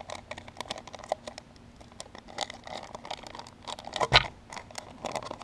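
Plastic soft-plastic bait bag crinkling and rustling as fingers pinch and pull at its sealed top, trying to open it, with one louder knock about four seconds in.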